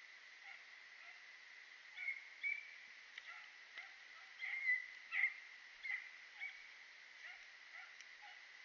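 Beagles barking in the distance: a string of short, faint yelps at uneven intervals, loudest in the middle of the stretch.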